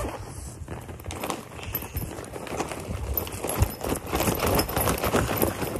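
Fidget toys knocking and rattling together inside a soft fabric case as it is handled and lifted: an irregular clatter of small knocks, busiest in the second half.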